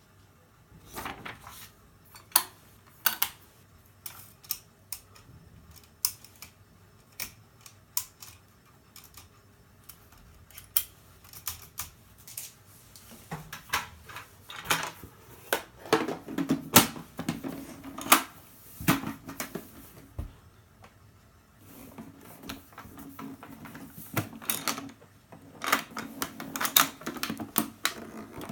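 Hermes Baby manual portable typewriter being typed on: sharp key strikes, one at a time at an uneven pace, some much louder than others.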